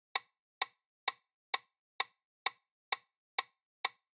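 Countdown-timer ticking sound effect: sharp, evenly spaced clock ticks, about two a second.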